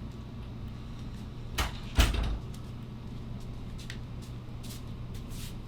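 A light knock and then a louder thump close behind it, over a steady low hum.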